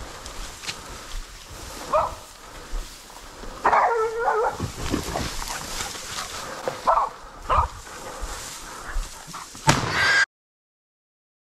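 Hunting dogs yelping and barking in short calls every second or two, one longer drawn-out yelp about four seconds in, over wind and rustling from walking through long grass. The sound cuts off abruptly near the end.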